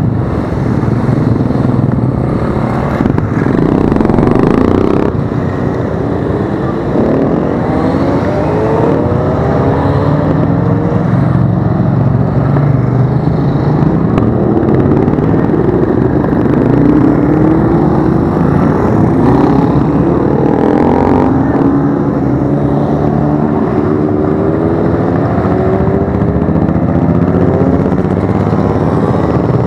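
A procession of motorcycles of mixed types (sport bikes, dirt bikes, scooters) passing close by one after another, many engines running at once. Their pitches keep rising and falling as each bike accelerates and goes past.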